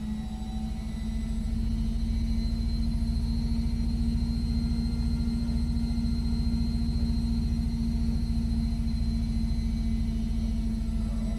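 Electric motor of a homemade mini-lathe running steadily with a strong even hum. It grows louder over the first couple of seconds, then holds.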